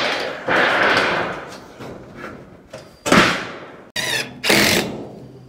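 Sheets of used 5V metal roofing being handled, banging and flexing in several loud crashes that each ring out for a moment.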